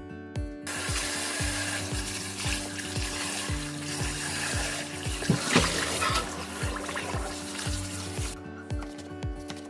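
Tap water running and splashing into a stainless steel bowl as hands rinse aged kimchi in it; the water starts about a second in and stops shortly before the end, with one louder splash midway. Background music with a steady beat plays throughout.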